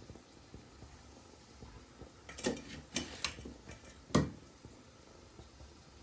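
A few sharp knocks and clatters over a quiet background: a quick cluster a little past two seconds in, then one louder knock about four seconds in.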